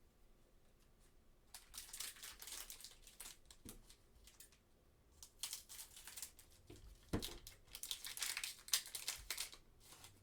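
A trading card pack wrapper being torn open and crinkled in several crackly bursts, with a couple of dull thumps of handling.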